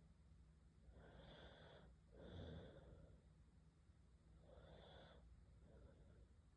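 A sleeping girl snoring faintly, two noisy breaths in and out; the first out-breath is the loudest and has a low rumble.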